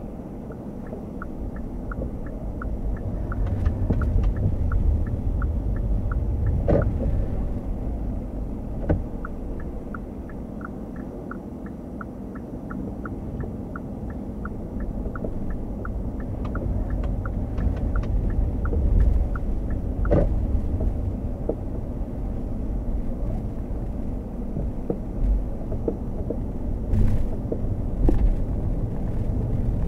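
Hyundai Kona Hybrid driving, heard from inside the car: a steady low road-and-tyre rumble, with the turn-signal indicator ticking about twice a second for the first half. A few knocks from bumps in the road come through.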